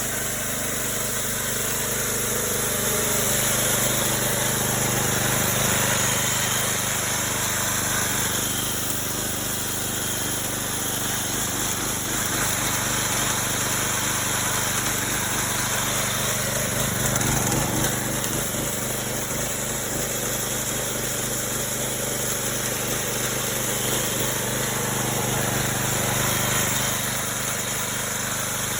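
Homemade chainsaw slabbing mill running steadily under load as the saw chain cuts through a log.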